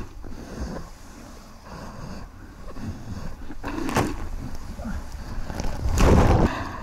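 Sea water rushing and splashing past a surfboard as it rides a wave, with whitewash crashing over it about four seconds in. Near the end comes the loudest part, a deep churning rumble of water heard underwater as the surfer wipes out.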